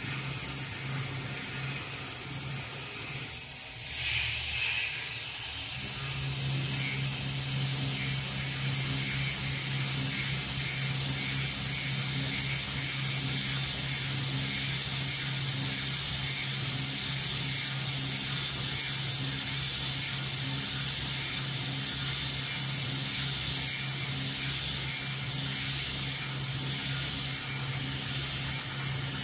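CNC milling machine cutting aluminium with a small end mill: a steady hiss from the coolant nozzle blowing at the cutter, over the steady hum of the belt-driven spindle. The sound briefly changes about four seconds in, and from about six seconds a higher steady whine joins.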